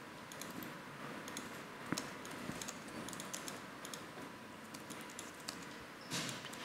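Faint, irregular typing on a computer keyboard: light, quick key clicks at uneven intervals.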